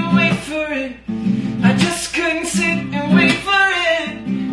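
Acoustic guitar strumming chords, with a brief drop in level about a second in.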